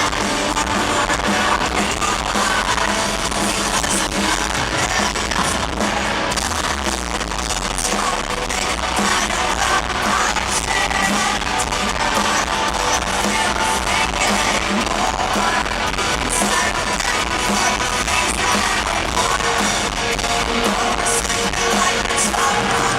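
Rock band playing live: electric guitars and drums under sung vocals, loud and steady without a break, in a rough, low-quality recording.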